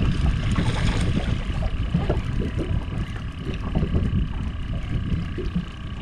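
Wind buffeting the microphone in a steady low rumble, with scattered faint clicks and small splashes from a hooked speckled trout being reeled to the boat.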